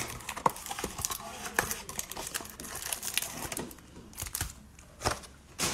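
Cardboard hanger box of Playoff football cards being torn and pulled open by hand: a run of tearing, creasing and crinkling sounds with sharp snaps, the loudest right at the start and a few more about five seconds in.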